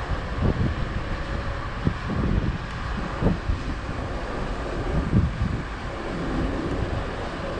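Wind buffeting the camera's microphone on a moving Jeep Rubicon, in irregular low thumps over a steady rush of vehicle and road noise.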